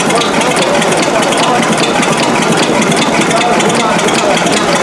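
Tandem double-acting engine, a Snow-type patent model, running steadily with an even, rapid mechanical clatter.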